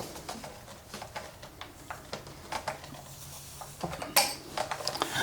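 Light scattered clicks and scraping from hands working at a clock movement held on with double-sided tape, with one sharper click about four seconds in.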